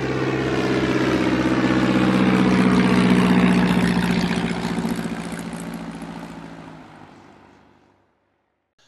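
Propeller aircraft engine passing by: it swells up, is loudest about three seconds in, then fades away with its pitch falling slightly, gone shortly before the end.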